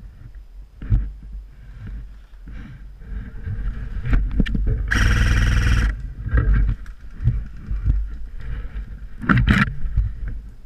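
Footsteps crackling over twigs and needles on a forest floor, with rumble from the movement of a body-worn camera. About five seconds in, a loud rush of noise lasting about a second as branches brush and scrape past.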